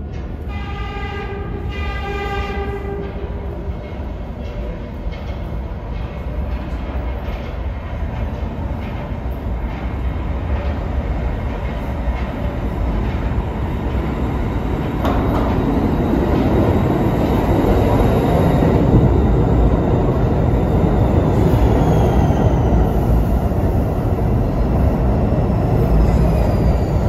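New York City Subway C train sounding two horn blasts as it approaches, then its rumble growing louder as it pulls into the station. Near the end a whine falls in pitch as it slows.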